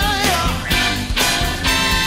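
A band playing an upbeat number with a steady beat and a lead line that slides in pitch.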